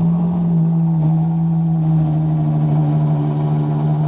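Ferrari Purosangue's 6.5-litre V12 idling steadily just after start-up, on its exhaust without an X pipe.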